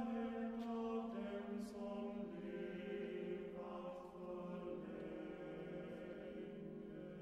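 Chamber choir singing slow, sustained chords, the pitches shifting gradually and the sound growing softer toward the end.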